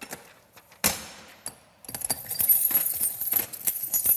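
A heavy metal clunk about a second in, then a ring of keys jangling with small clicks from about two seconds in, as keys are worked in the lock of a steel prison cell door.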